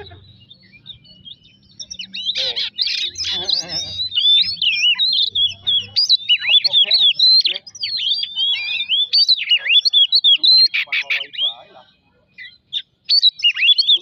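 Oriental magpie-robin singing a fast, varied run of whistles and chattering notes, beginning about two seconds in, breaking off briefly near the end and then starting again.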